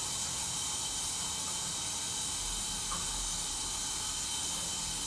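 Steady hiss of room noise picked up by a phone's microphone on a livestream, with a faint steady high tone running through it.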